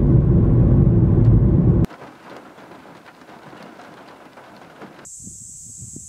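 A heavy low rumble for about the first two seconds that stops abruptly, then a softer crackling hiss, and about five seconds in a steady high-pitched buzz of cicadas starts suddenly, with faint low thuds beneath it.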